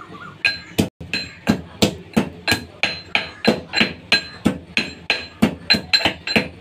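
Steel pestle pounding in a steel mortar: sharp metallic clanks about three times a second, each with a brief ringing tone.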